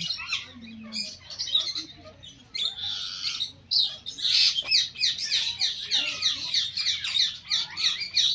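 A flock of rose-ringed parakeets calling, a dense chatter of shrill squawks and chirps that grows busier and more continuous in the second half.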